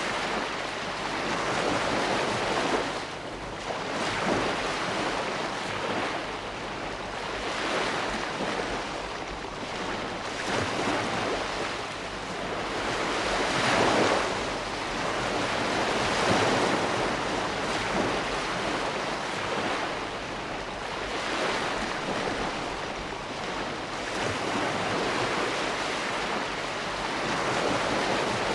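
Ocean waves breaking on a shore, a continuous rush of surf that swells and recedes every few seconds, with the strongest surges about halfway through.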